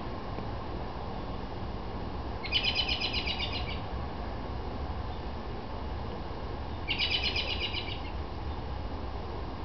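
A bird giving two short, rapid trills, each about a second long and about four seconds apart, over a steady low background rumble.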